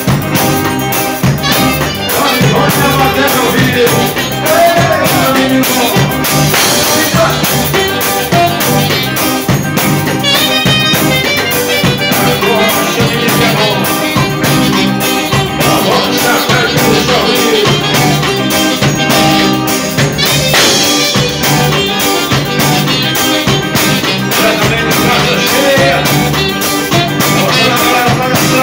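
Live band playing loud music: a drum kit keeps a steady beat under electric guitar, with a voice singing over it.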